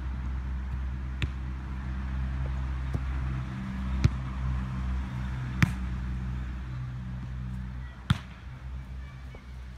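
A football being kicked back and forth: about five sharp, unevenly spaced thuds of foot on ball, the loudest a little past halfway, over a steady low hum.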